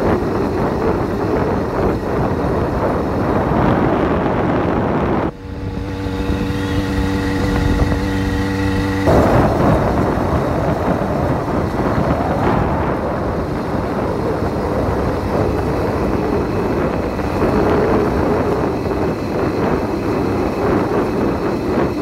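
Wind rushing over the microphone while riding an 80cc bike, with its engine running steadily underneath. For a few seconds around the middle the wind dies down after a brief dip and the engine's steady drone comes through clearly, then the wind noise returns.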